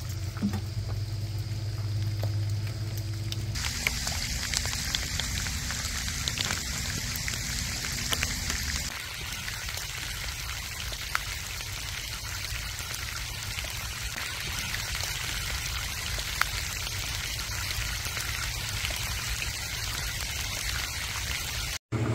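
Steady rain falling, with scattered drips, and a low steady hum underneath for the first several seconds.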